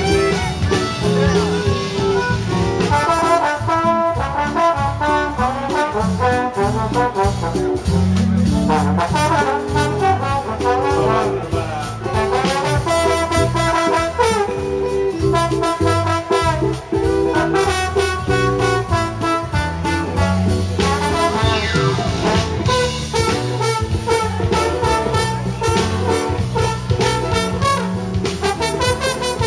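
Live band playing an upbeat dance number with a steady beat, the trombone taking the lead over accordion, electric bass and drum kit.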